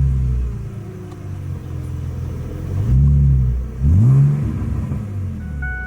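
C5 Corvette's 5.7-litre V8 running just after start-up, with its revs settling at the start, then two quick throttle blips about three and four seconds in.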